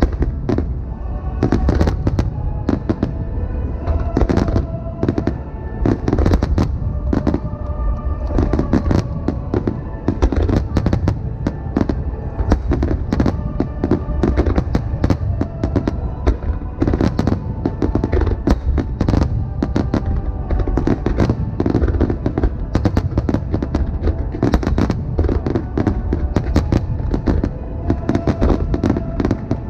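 Finale barrage of aerial firework shells bursting in rapid, unbroken succession, a dense mix of deep booms and sharp cracks, with music playing underneath.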